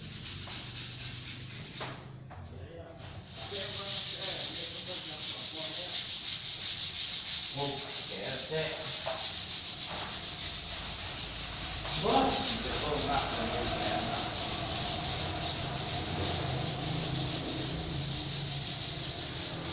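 Steady sanding hiss that starts about three seconds in, with faint voices behind it.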